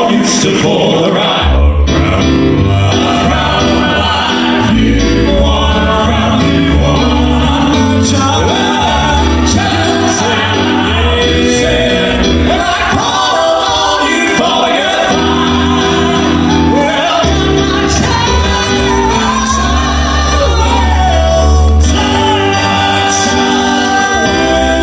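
Male southern gospel quartet singing in harmony, live, with piano accompaniment.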